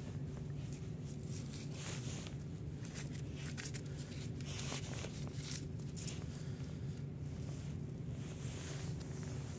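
Irregular rustling and light knocks of potatoes shifting and rubbing against each other as a hand moves through a pile, over a steady low hum.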